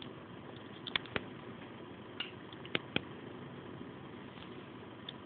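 A toddler eating porridge by hand at a plastic high-chair tray and bowl: about five short, sharp clicks and taps in the first three seconds, over a steady low background hum.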